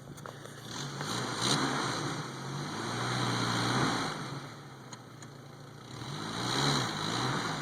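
1995 Jeep Wrangler's engine revving in deep snow, rising and falling in two surges: the first starting about a second in, the second about six seconds in.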